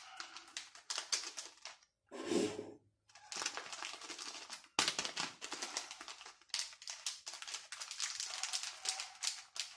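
Paper packet of dry ginger powder being handled and crinkled open over a steel mixer jar: a dense, irregular crackle of paper clicks and rustles with short pauses.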